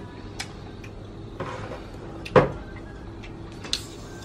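Items being handled on a tabletop: a few light clicks, a brief rustle, and one loud knock about two and a half seconds in, over a steady low hum.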